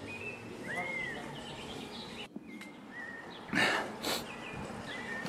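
Small birds chirping outdoors: short whistled notes, one of them a rising-and-falling arch about a second in, over a steady background hiss. Two brief rustles come about three and a half and four seconds in.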